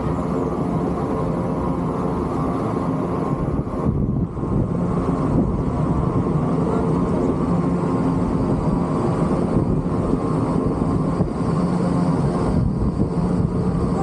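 Steady low rumbling drone heard from inside a round rapid-river ride boat as it travels along the course, with a brief dip about four seconds in.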